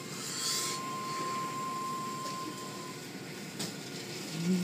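Automatic car wash heard from inside the car's cabin: a steady hiss of water spray and cloth brush strips rubbing across the body and windows. A thin steady whine runs under it and stops about three seconds in.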